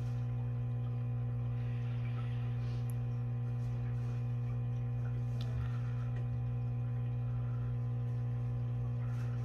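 Aquarium pump running: a steady low electrical hum, with a few faint ticks.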